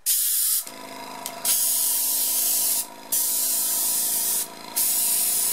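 A Master Airbrush G233 airbrush spraying water in loud hissing bursts as its freshly repaired trigger is pressed and released, about four times. Under the spray, a small airbrush compressor hums steadily from about half a second in.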